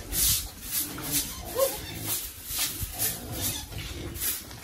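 Pigs eating noisily: rhythmic crunching and chomping, about two bites a second.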